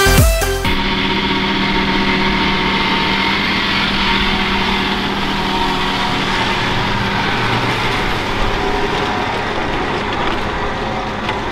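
Diesel engine of a large farm tractor running steadily under load during grass silage work, with a steady rushing machinery noise over it; its note shifts lower about seven seconds in.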